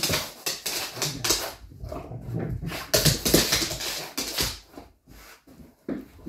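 Xoloitzcuintli playing on a blanket bed: a run of rustling and scuffling bursts as it jumps and paws at the blanket, thinning out to a few short scuffles about five seconds in.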